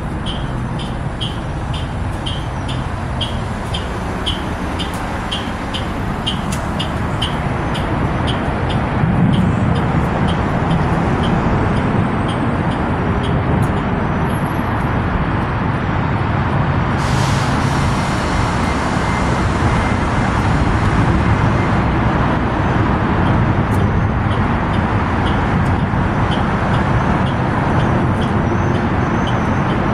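Steady noise of a New Flyer electric transit bus standing at a stop, with traffic around it. A fast, even beep, about two a second, fades away over the first dozen seconds, and a sudden hiss of air comes about halfway through.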